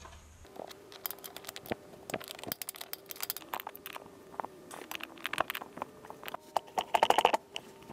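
Hand wrench clicking and clinking in quick irregular runs as it works the bolts of a driveshaft flange loose, over a faint steady hum, with a louder metallic rattle about seven seconds in.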